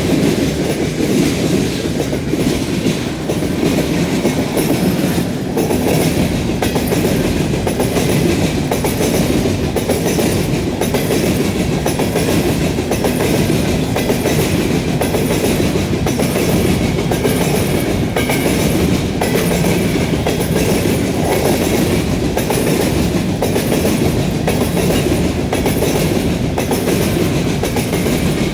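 A freight train rolling past at steady speed, its car wheels clicking rhythmically over rail joints and the switch.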